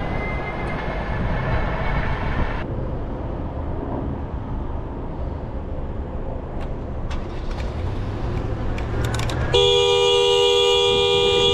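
Steady road and wind noise, then near the end a loud, sustained two-tone vehicle horn blast of about three seconds.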